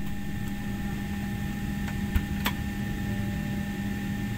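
Steady cabin noise inside a jet airliner on the ground: a constant low hum with faint steady whining tones over it. A few light clicks come about two seconds in.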